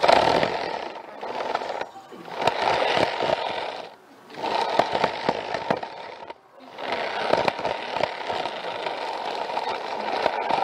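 Model train rattling along its track, heard up close from a camera riding on it: a dense crackling rattle full of small clicks that drops away briefly three times.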